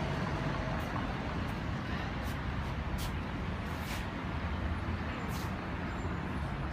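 Steady low rumble of outdoor background noise, with several short high hisses spread through it.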